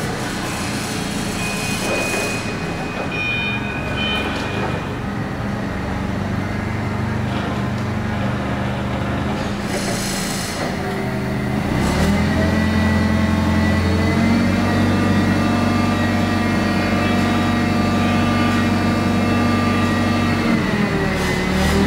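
Propane-fuelled CAT GC30K forklift engine running, stepping up in speed about halfway through and held there while the hydraulic mast lifts the forks to full height, then dropping back near the end.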